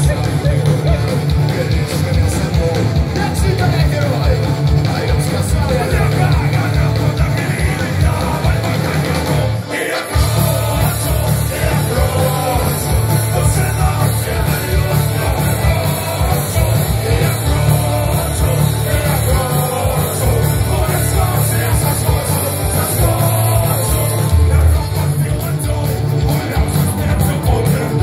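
Live rock band playing through a PA: banjo, electric guitars, accordion and drums with a singer at the microphone. The music stops briefly about ten seconds in, then resumes.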